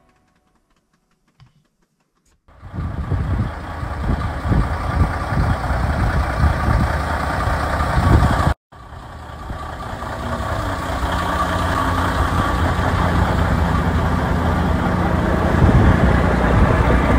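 Volvo VNL 770 semi truck's diesel engine running, a low steady rumble that comes in suddenly about two and a half seconds in, drops out for a moment near the middle, then grows slowly louder.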